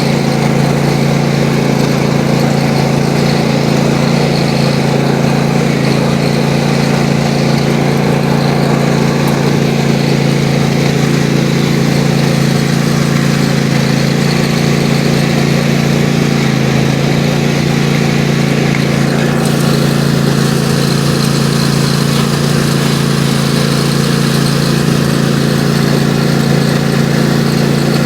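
Riding lawn mower engine running steadily under way.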